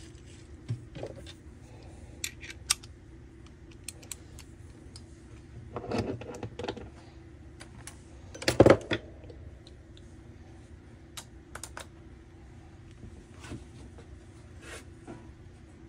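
Hand tools and sockets being handled at a workbench: scattered metal clicks, taps and clinks, with a louder clatter a little past halfway.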